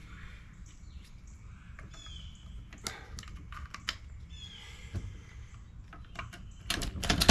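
Shotshell reloading press and plastic wad being worked: scattered sharp clicks and knocks as the wad is seated on the powder in the shell, with two short high squeaks in the middle and the loudest knock right at the end.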